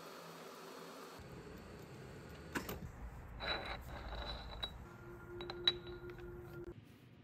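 Metal lathe running as a drill bit bores into the end of a metal bar, cut off abruptly about a second in. Then scattered metallic clicks and clinks from handling the bar and the lathe chuck, with a brief steady hum in the second half.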